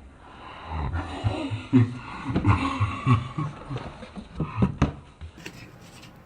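Low-pitched human vocal sounds, grunting or mumbling without clear words, with a few sharp clicks about three-quarters of the way through.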